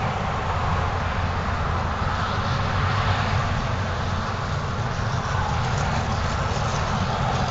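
Steady rumbling noise of passing road traffic, unbroken and even, with no single event standing out.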